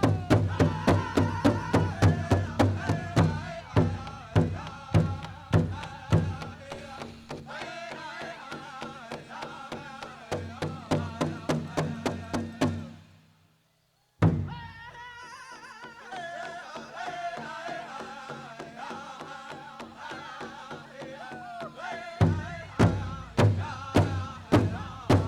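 Powwow drum group singing a men's prairie chicken dance song over a fast, steady beat on a large powwow drum. Midway the beat goes soft under the voices, the sound fades and breaks off for about a second, then the singing picks up again and the hard drumbeat returns near the end.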